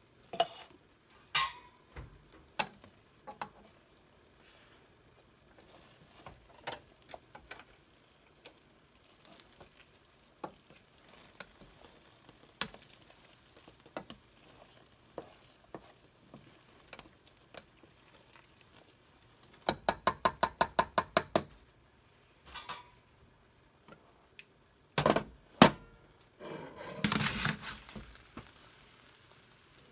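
Cooking sounds from a pot of gravy on the stove: a utensil clinking and knocking against pots and pans every second or so. About two-thirds of the way in comes a quick, even run of about a dozen clicks, and near the end a few louder knocks and a brief rustling hiss.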